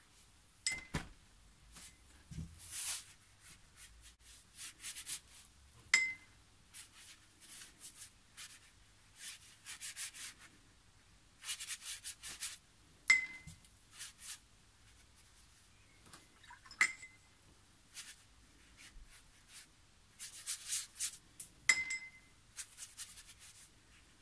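Wet paintbrush scrubbing and dabbing on watercolour paper in short strokes, working water into the inked areas to release the colour. Five sharp clinks ring out between the strokes and are the loudest sounds.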